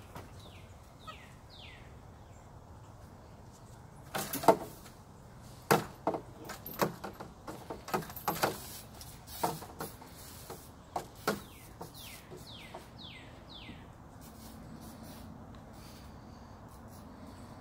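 A string of sharp, irregular knocks and clatters lasting about seven seconds as a capuchin monkey clambers over the toys and wire of its pen. A bird calls with short falling chirps before and after the knocking.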